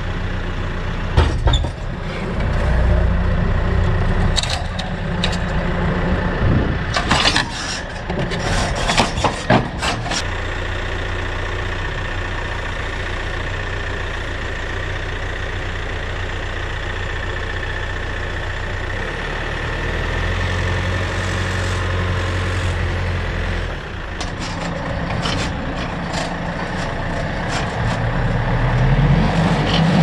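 A farm tractor's diesel engine running steadily, with bursts of metallic clanks and rattles at the start, around a third of the way in and again near the end. The engine revs up in the last couple of seconds.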